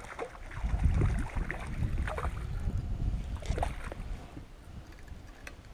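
Wind rumbling on the camera microphone, with short splashes from a hooked shad thrashing at the surface as it is reeled toward the bank.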